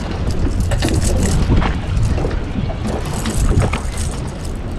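Strong wind buffeting the microphone on a small boat, a dense low rumble with scattered sharp knocks.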